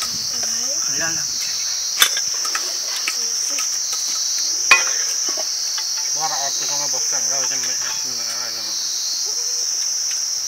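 A steady, high-pitched insect chorus that swells and eases slowly, with two sharp knocks, one about two seconds in and one near the middle.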